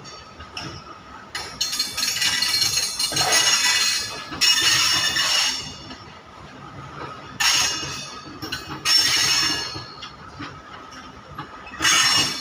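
Freight train wagons moving on the rails, with about five loud bursts of high metallic squealing and clinking from the wheels over a steady low rumble.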